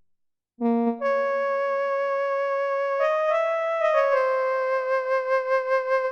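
A Kurzweil K2vx synthesizer preset played as a slow line of held notes. The first note enters sharply about half a second in, the pitch steps through a few notes around the middle, and a vibrato comes in over the last couple of seconds.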